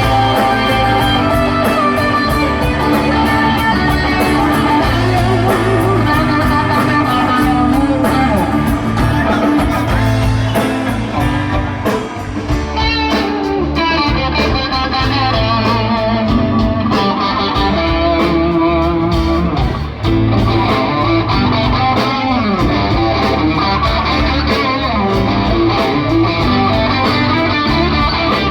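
Live rock band playing an instrumental stretch: electric guitar over bass guitar and drums. The bright cymbal wash thins out about twelve seconds in.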